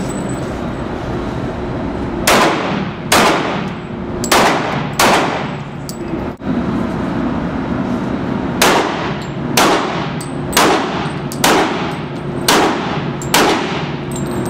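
Handgun shots fired in an indoor range, about ten in all, each sharp crack followed by an echoing tail: four shots, then a break, then six more at roughly one-second intervals.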